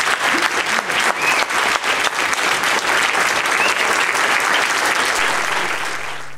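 Audience applauding loudly, a dense patter of many hands clapping. It fades near the end as music comes in.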